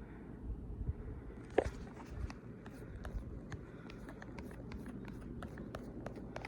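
Faint handling sounds: a string of small clicks and light scraping, with a short falling squeak about one and a half seconds in, over a low rumble.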